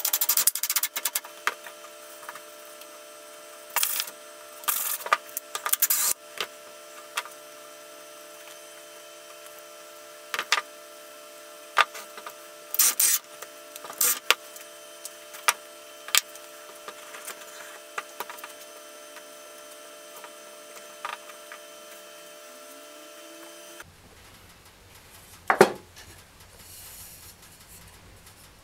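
Plywood parts knocking and clattering on a workbench as they are handled, with short bursts from a cordless drill driving screws into them, over a steady hum. One sharp, loud knock near the end.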